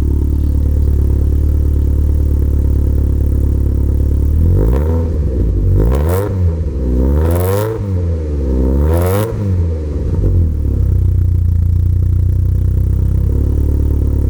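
VW Golf MK2 GTI 16v four-cylinder engine idling through a full stainless steel exhaust, revved three times about four seconds in and then dropping back to a steady idle.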